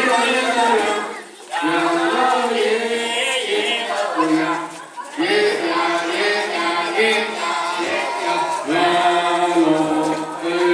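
A group of voices singing a Dong folk chant together for the ring dance, in long held phrases with short breaks between them.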